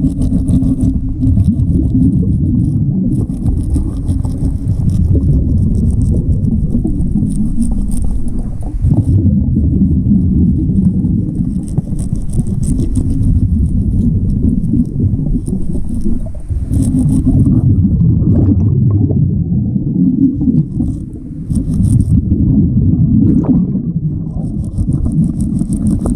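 Underwater noise on a diver's camera: a continuous low rumble of moving water and exhaled air bubbles, with stretches of fine high crackling that come and go every few seconds.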